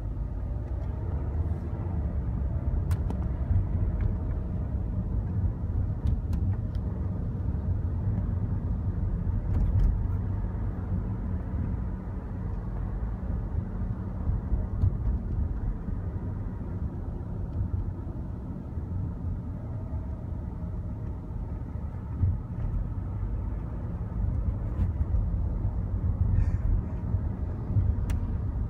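Road and engine noise of a car driving in traffic, heard from inside the cabin: a steady low rumble with a few light clicks.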